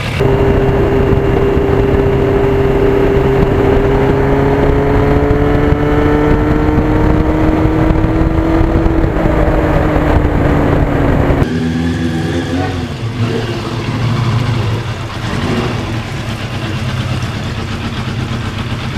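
1991 Yamaha FZR1000's inline-four engine running under way at a steady pace, its pitch slowly rising. About eleven seconds in, the sound cuts abruptly to a quieter stretch of the engine with wavering pitch.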